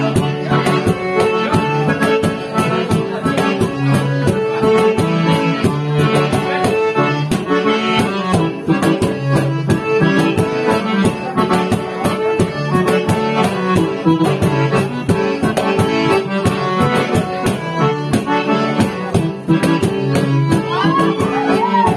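Accordion playing a lively tune over a fast, steady percussion beat.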